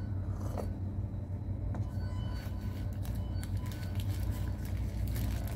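A steady low background rumble, with a paper sandwich wrapper crinkling in the hands from about two seconds in.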